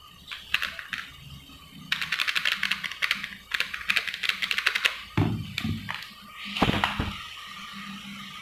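A spoon working against the side of an aluminium cooking pot of frying masala: a quick run of light clicks and scrapes lasting about three seconds, then two dull knocks.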